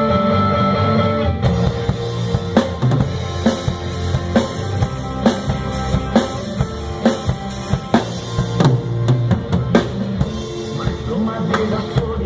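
Drum kit played over a band backing track of bass and guitar. Kick and snare keep a steady beat of sharp hits, starting about a second and a half in.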